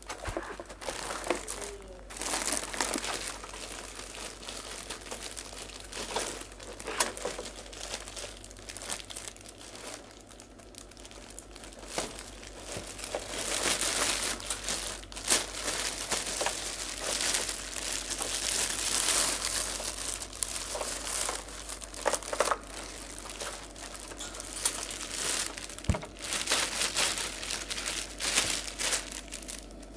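Clear plastic wrapping crinkling and rustling as it is handled and pulled off a quartz room heater, in irregular bursts that are loudest about halfway through.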